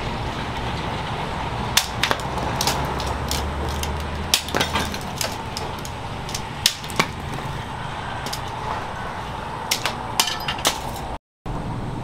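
Hand-forged knife chopping into sugarcane stalks: a dozen or so sharp cracks, irregularly spaced, over a steady background hum.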